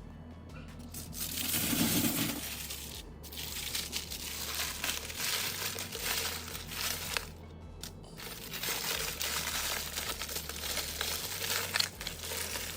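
Background music with a steady bass line, over three long bouts of rustling, crinkling noise and a sharp click near the end.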